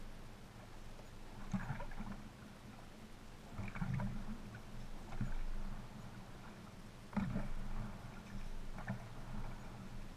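Kayak paddle strokes: the blades dip and splash and water sloshes against the hull in irregular bursts every second or two, over a steady low hum.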